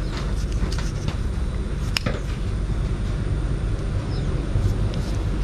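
A handheld LED flashlight being handled, with one sharp click about two seconds in and a few faint ticks before it, over a steady low rumble.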